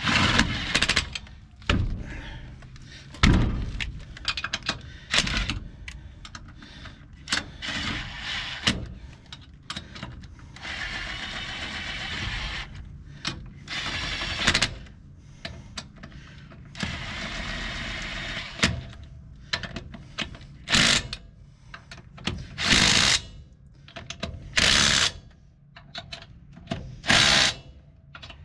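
A handheld power tool running in bursts, a few seconds at a time at first and then in short, loud spurts about every two seconds, with metal knocks and clanks in between, during work on a truck's wheels.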